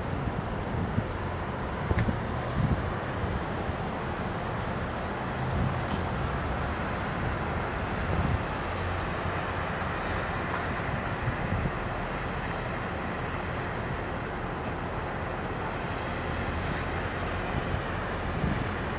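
Canadian Pacific SD40-2 diesel locomotive, with its 16-cylinder EMD 645 engine, running as it approaches leading a short transfer train. Wind buffets the microphone with low thumps.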